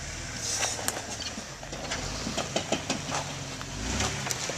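Jeep Wrangler engine running at low revs as it crawls over rocks, with scattered crunches and sharp clicks from the tyres on stone.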